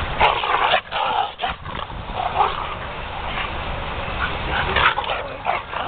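Two dogs at rough play, making short, irregular vocal noises.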